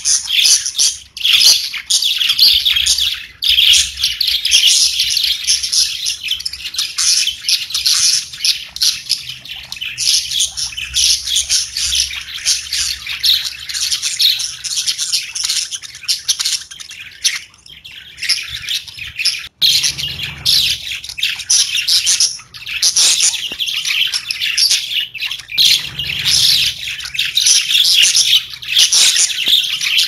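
Several pet budgerigars chirping together in a dense, continuous stream of short high chirps, with a few brief lulls.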